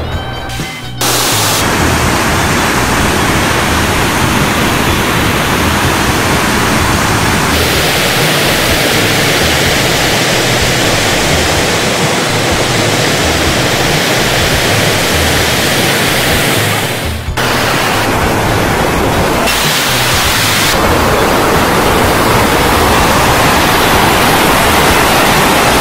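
Fast white-water mountain river rushing over boulders: a loud, steady roar that changes abruptly a few times at shot changes.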